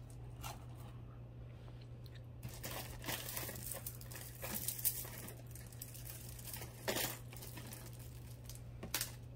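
Faint rustling and crinkling with scattered light clicks and clinks as costume jewelry is sorted by hand, with a few sharper clicks along the way.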